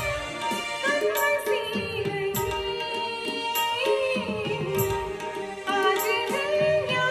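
Live Hindi film song: a singer's voice gliding through an ornamented melody, over sustained electronic keyboard chords and regular tabla strokes.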